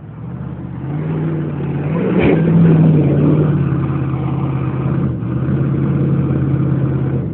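Jeep Grand Cherokee engine revving up in the first second and held at high revs while its tyres spin in a mud hole, digging the hole deeper instead of pulling free. A single knock about two seconds in.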